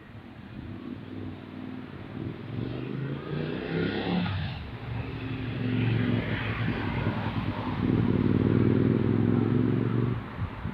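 A motor vehicle's engine passing close by. Its pitch climbs as it accelerates, then it runs loud and steady for a couple of seconds before cutting off suddenly near the end.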